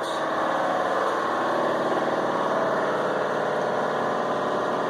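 UTV engine idling steadily.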